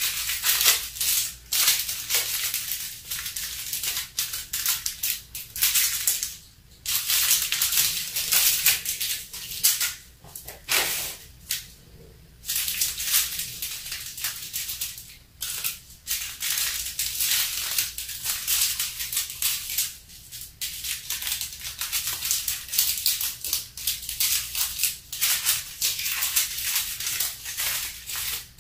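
Small plastic bags of diamond painting drills rustling and crinkling as they are handled and set down, the tiny drills rattling inside, in irregular spurts with a few short pauses.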